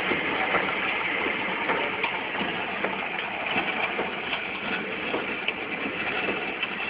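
Automatic coffee sachet packing machine running: a steady mechanical whir with many short clicks and ticks from its moving parts.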